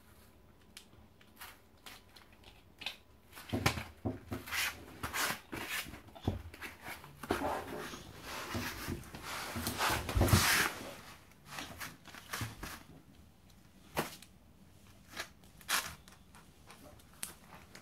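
Handling noise from a plastic Kinder Joy egg capsule and its wrapper: irregular clicks, knocks and crinkling rustles, thickest in the middle with a louder rustling stretch about ten seconds in, then sparser clicks.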